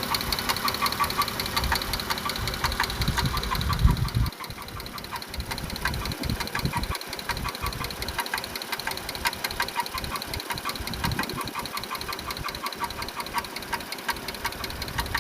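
2016 Dodge Grand Caravan's 3.6-litre V6 running with a rapid, even ticking from the valve train. The ticking comes from failed rocker arms and lifters wearing down a camshaft lobe. The deeper engine rumble drops off about four seconds in.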